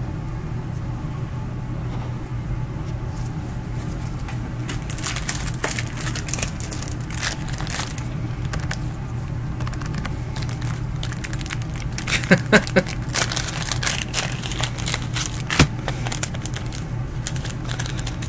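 Plastic card sleeves crinkling and rustling as trading cards are handled and slid into them, with small scattered clicks and a few sharper crinkles about twelve seconds in, over a steady low hum.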